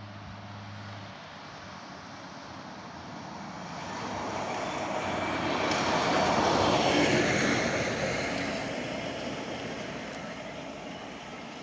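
A rail vehicle passing by: a rushing noise that swells to a peak about six to seven seconds in and then fades away, its pitch dropping slightly as it goes past.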